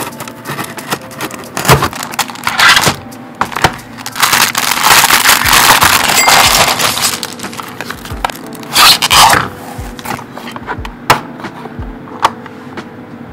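Plastic wrapping crinkling and rustling as it is peeled off a clear plastic tablet case, loudest in the middle, followed by light clicks and taps of the plastic case being handled, over soft background music.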